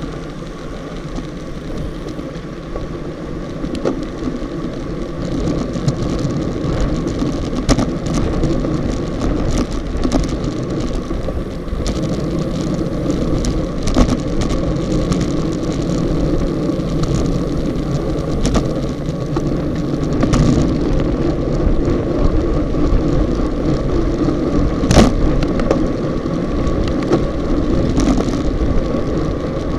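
Wind rushing over an action camera's microphone, with tyre and road noise, on a road bike riding at about 40 km/h in a race bunch; it grows louder over the first several seconds as the pace rises. Sharp knocks and rattles from bumps in the road break through now and then.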